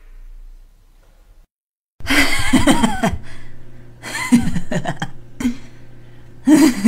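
A man's evil laugh in several separate, breathy bursts, starting after a short silence about two seconds in, over a low steady hum.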